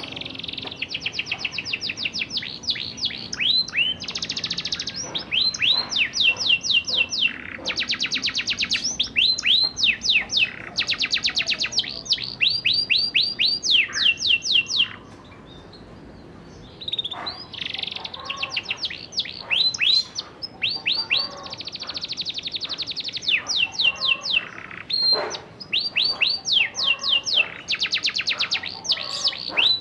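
A young canary singing rolling song: fast trills of repeated falling notes, phrase after phrase, breaking off for about two seconds halfway through.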